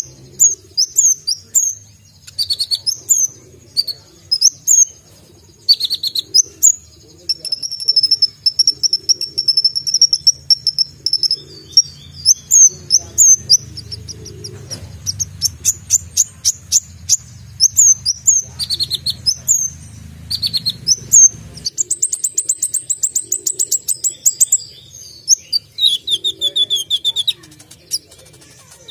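A caged Van Hasselt's sunbird (kolibri ninja) singing a fast, sharp, high-pitched song of chirps and whistled notes, with a long held whistle partway through and a very rapid trill later on.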